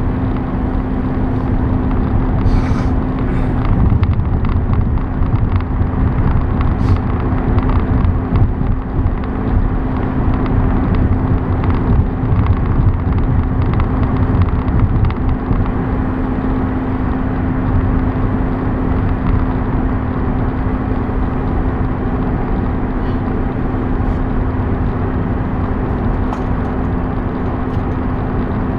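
A car driving at highway speed: steady road and engine noise with a constant low hum.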